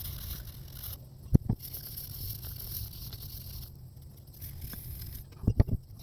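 Fine-grit sandpaper scratching back and forth on a steel axe head, in stretches of a second or two, with a few sharp knocks about a second and a half in and a quick cluster near the end.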